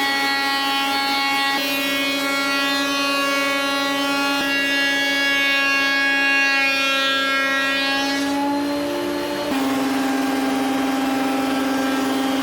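Benchtop planer thicknesser running with a steady motor whine that shifts in pitch a few times, changing as timber feeds through the cutter head.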